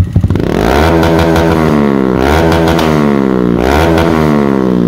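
Honda Monkey 125's single-cylinder engine, fitted with a higher-lift camshaft and breathing through a Yoshimura exhaust, revved hard from idle. The revs shoot up about half a second in, sag and are snapped back up twice, then fall back toward idle near the end.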